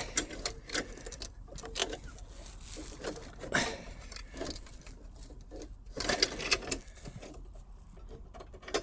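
Bicycle-type roller chain rattling and clicking in irregular bursts as it is worked by hand onto the rear wheel's freewheel sprocket, with a busier clatter about six seconds in.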